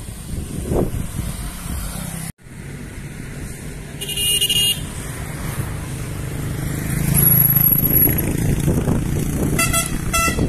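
Road traffic with engines running steadily. A vehicle horn sounds about four seconds in, and there is a quick run of honks near the end. The sound cuts out briefly about two seconds in.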